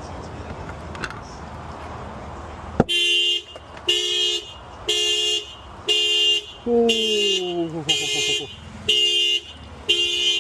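Car alarm going off, the car's horn honking in even pulses about once a second, starting about three seconds in after a steady hiss.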